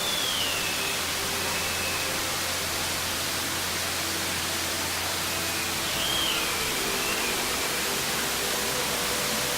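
Steady, even rush of a waterfall's falling water, with a few faint wavering whistles above it.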